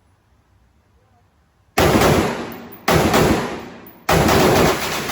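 AR-15 pistol fired in three rapid strings of shots after a short pause, the last string the longest, each shot ringing out between strings.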